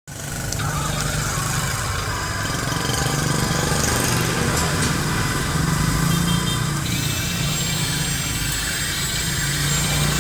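Remote-controlled model excavator running: a steady engine-like hum with a higher whine on top that changes about seven seconds in.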